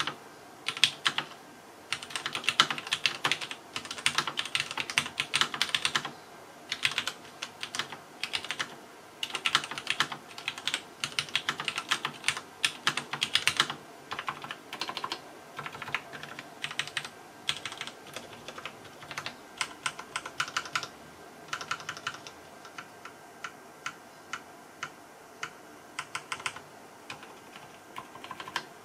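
Typing on a restored 1990 Wyse-built Bull Questar 205 terminal keyboard with lubed Cherry MX Black switches on a metal plate: fast runs of keystrokes for about the first half, then slower, scattered presses of single keys.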